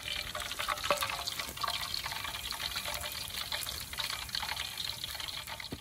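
Hot frying oil in a wok crackling as a whole fried fish is lifted out, oil streaming and dripping off it back into the pan, with a light knock about a second in.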